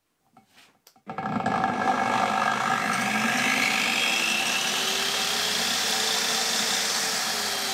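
Large angle grinder with a diamond cutting disc, run with no load as a test of its newly fitted rocker switch. After a few small clicks it starts about a second in, whining up in pitch as it comes up to speed, then runs steadily. It begins to wind down right at the end.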